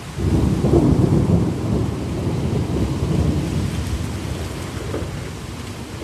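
Thunder rumbling over steady heavy rain: it breaks in suddenly just after the start, is loudest in the first couple of seconds, then rolls on and fades.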